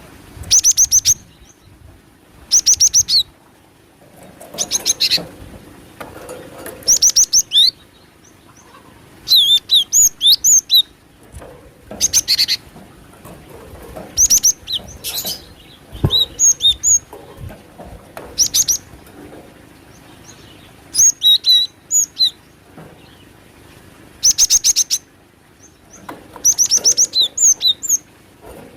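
Cinereous tit (glatik batu) calls from a bird-lure recording: short bursts of rapid, high, sharp notes, each about a second long, repeating every couple of seconds.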